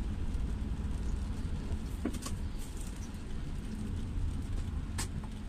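Car driving on a wet road, heard from inside the cabin: a steady low rumble of engine and tyres. A few short sharp ticks come about two seconds in and again near the end.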